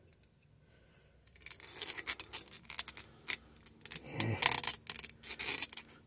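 Clattering clicks, knocks and scrapes of a camera stand being handled and adjusted, starting about a second in.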